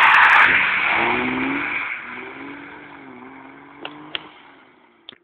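BMW E30 passing close in a drift: a loud rush of engine and tyre noise on the wet road, then the engine revs up and fades steadily as the car drives away. Two sharp clicks come near the end.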